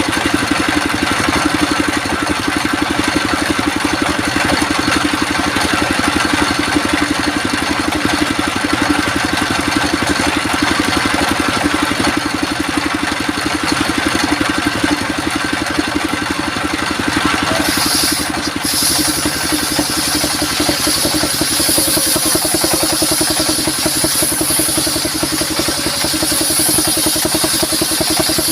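Engine-driven circular sawmill running steadily. About two-thirds of the way in, a loud high-pitched whine joins as the saw cuts into the wood.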